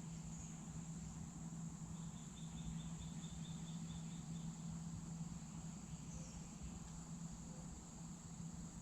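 Faint outdoor insect drone, a steady high buzz, over a low steady hum. A couple of seconds in comes a quick run of about a dozen high chirps.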